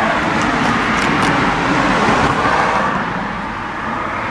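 Road noise of a passing vehicle: a rushing hiss that is loudest over the first three seconds and then fades, with a few light clicks.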